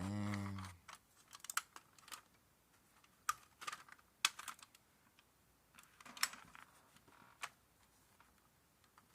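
Scattered small clicks and taps, irregular and about a dozen in all, from handling a diecast model car while pressing its plastic-stemmed wheels onto the axles for a test fit.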